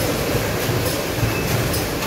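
Automatic bhujia packing machine running: a steady mechanical clatter with repeated low knocks.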